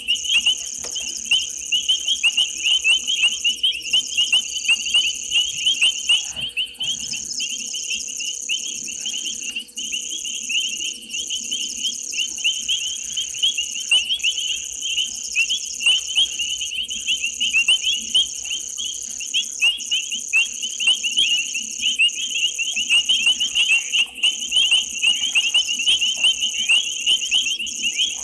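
Night chorus of frogs and insects: a dense, pulsing mass of rapid high chirping calls, with a steady, even higher insect trill running over it and short whistle-like notes repeating every second or so.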